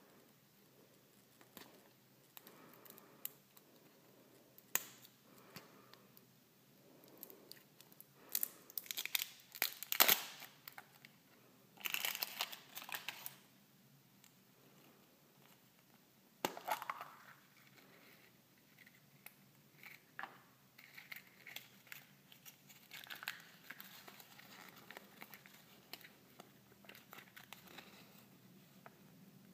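Hands peeling and tearing the printed plastic wrapper off a surprise egg: crinkling and tearing in bursts, loudest about ten to thirteen seconds in. A sharp snap comes midway as the plastic egg capsule is pulled open, and softer paper rustling follows as a folded leaflet is opened out.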